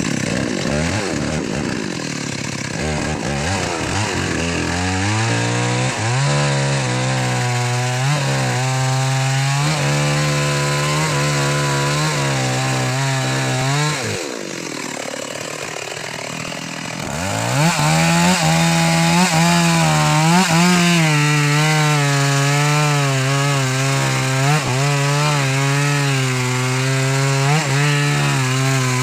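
Chainsaw running at high revs and cutting through wood, its pitch wavering as the chain bites. About halfway through it drops to lower revs for a few seconds, then revs back up and cuts on.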